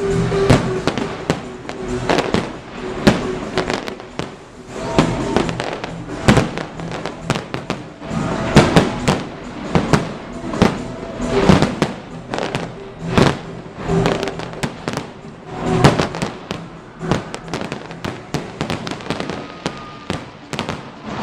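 Aerial fireworks shells bursting in a dense, irregular string of loud bangs, with music playing underneath.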